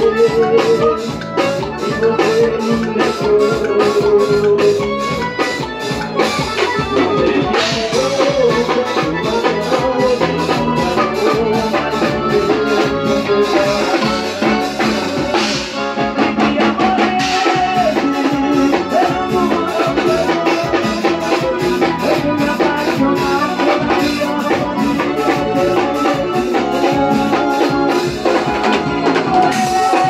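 Live forró band playing an instrumental passage: accordion melody over drum kit, electric bass and keyboard, with a steady dance beat.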